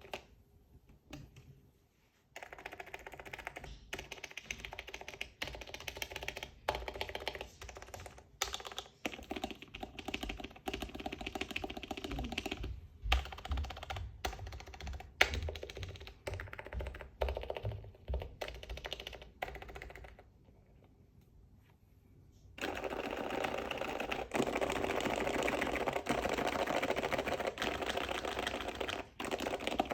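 Typing on a Topre electrostatic-capacitive keyboard fitted with HiPro keycaps and old Pro 2 rubber domes: a run of rapid keystrokes. The typing breaks off briefly near the start and again about two-thirds of the way through, then resumes denser and louder.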